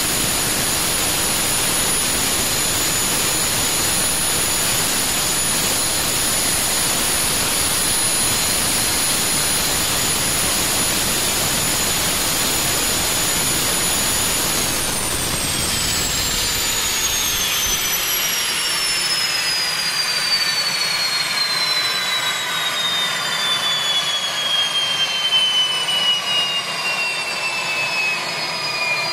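Garrett/Honeywell 85 series gas-turbine APU running earth-shatteringly loud at idle with no pneumatic or electrical load: a steady roar with a high whine. About halfway through it is shut down, and the whine glides steadily down in pitch as the turbine spools down and the roar fades.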